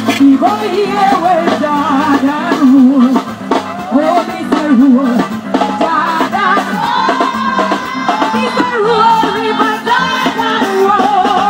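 A song with a singing voice, the pitch wavering with vibrato, over instruments and drums.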